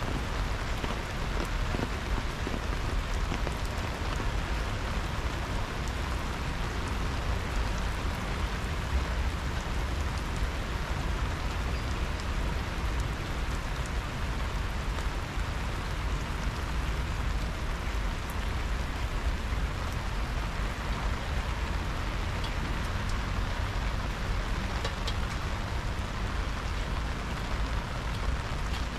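Steady rain falling: an even hiss of drops with a low rumble underneath.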